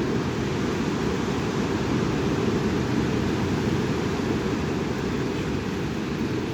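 Strong wind blowing across the microphone: a steady, loud low rush with no breaks.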